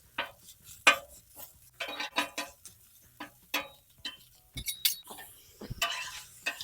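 Metal spatula clinking and scraping on a Blackstone's steel griddle top in short, irregular strokes, breaking up and turning Italian sausage as it cooks.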